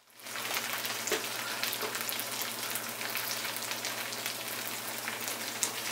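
Small whole brinjals frying in sesame oil with onions and curry leaves in a nonstick kadai, about three-quarters done. The oil sizzles steadily with scattered small crackles.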